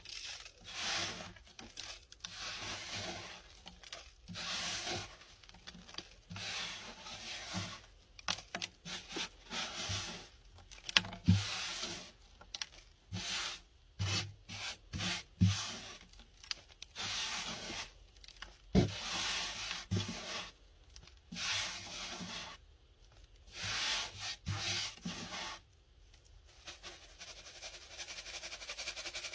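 Hardened baking soda being crushed and scraped on a hard surface, with powder sifting down. It is a long run of gritty, crunchy scraping strokes, with a few sharp cracks in the middle.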